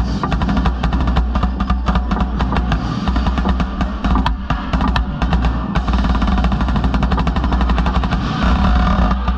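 Marching snare drum played close up in rapid strokes and rolls, together with the tenor and bass drums of a drumline, over steady low tones. The strokes thin out near the end as the steady tones come forward.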